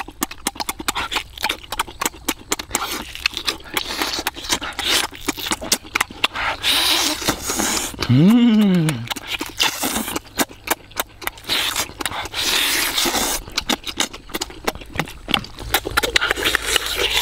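Wet, close-up chewing, lip-smacking and sucking of a person eating roasted chicken with his hands, a dense run of sharp smacks and slurps. About eight seconds in, a short hum from the eater rises and falls in pitch.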